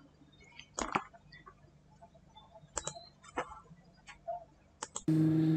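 A few scattered sharp clicks of a computer mouse or keys, the loudest about a second in, as a recording is opened on a computer. Just before the end, a recorded voice starts loudly, chanting Quran recitation in a steady held tone.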